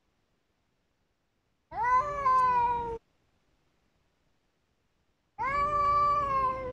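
Cat yowling in an aggressive standoff with another cat: two long drawn-out yowls. The first rises and then slides down in pitch; the second is held fairly level.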